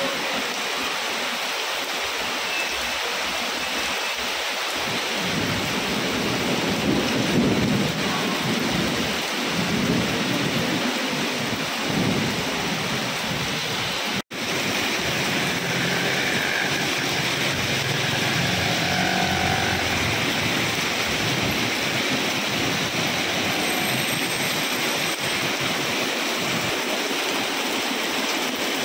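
Heavy rain pouring steadily onto pavement and parked vehicles, with low rumbling that swells and fades through the middle stretch. The sound cuts out for an instant about halfway through.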